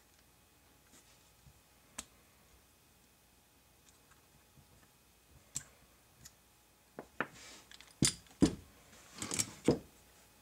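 Metal clicks and knocks of 1911 pistol parts being handled during field-stripping: a few single clicks at first, then a quicker run of clicks and short scrapes in the last few seconds.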